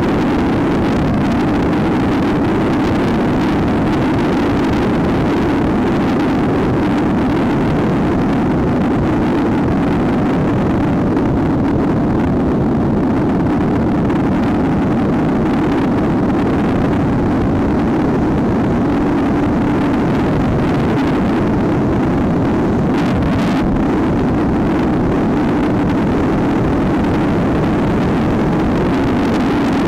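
Trail motorcycle engine running steadily at cruising speed, a constant drone mixed with wind rush on the microphone.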